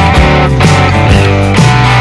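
Background music with guitar, loud and continuous.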